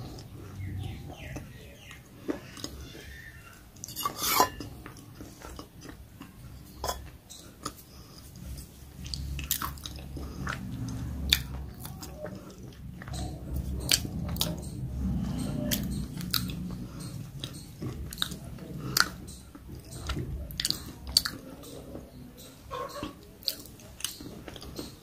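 A person chewing a crunchy snack mix of sev and peanuts with the mouth close to the microphone: irregular sharp crunches over a steady wet chewing sound, the loudest crunch about four seconds in.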